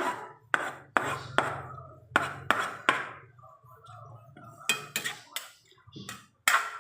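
Kitchen clatter: about a dozen sharp knocks of utensils against cookware at irregular spacing, with a low steady hum underneath.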